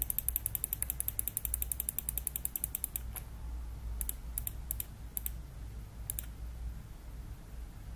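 Computer mouse scroll wheel ticking in a fast, even run of about ten clicks a second, which stops about three seconds in. A handful of scattered single mouse clicks follow. A steady low hum runs underneath.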